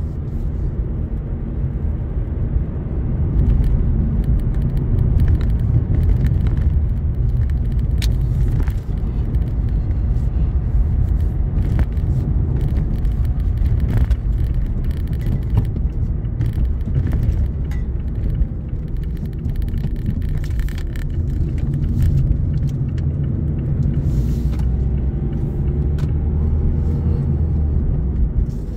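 A car being driven on the road, heard from inside the cabin: a steady low rumble of tyre and engine noise, with scattered light clicks now and then.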